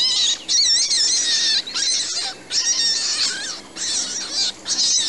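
High-pitched squeaky chatter used as a cartoon character's voice: about six short warbling squeaks in a row, rising and falling in pitch, with no recognisable words.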